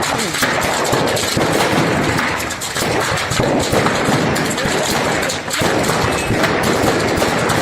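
Firecrackers going off in rapid, unbroken succession, a dense crackle of sharp reports: a burning fireworks stock setting itself off.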